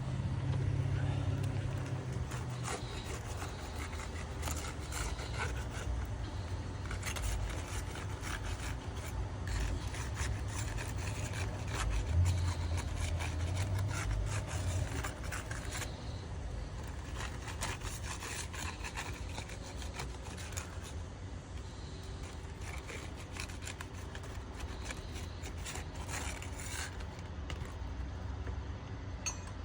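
Metal paint scraper working under roof shingles, prying them up: irregular scraping and rubbing strokes over a steady low rumble. The shingles are being lifted gently in a repair test, to see if they come up without creasing.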